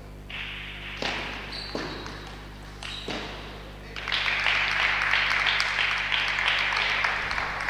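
Table tennis ball struck back and forth in a short rally, a few sharp clicks of ball on bat and table. About four seconds in the rally ends and dense clapping starts as the point is won.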